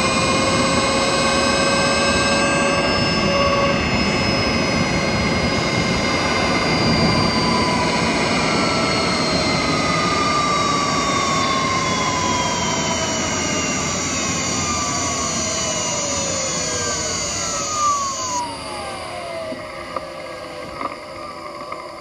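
Electric drive motor and inverter whine of a third-generation Honda Insight (i-MMD hybrid) running in EV mode with the engine off, heard from the engine bay over road noise. Several whining tones fall in pitch as the car slows to a stop, and a high inverter tone cuts out about eighteen seconds in.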